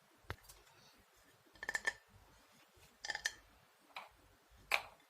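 Small toy kitchen pieces clicking and tapping against each other as they are handled and set down: a single click, then four short clusters of light clicks, some with a brief ringing clink.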